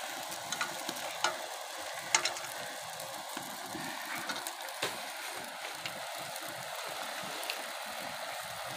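Shelled snails with onion sizzling steadily in hot oil in an iron kadai, with a few sharp clicks scattered through the frying.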